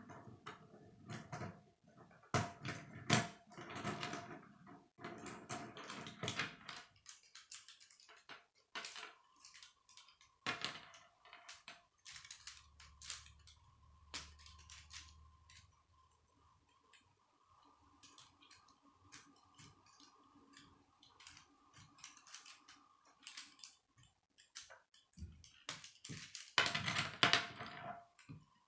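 Plastic K'nex rods and connectors clicking and rattling as the model is handled and pieces are snapped together: stretches of clatter near the start and again near the end, with scattered clicks between.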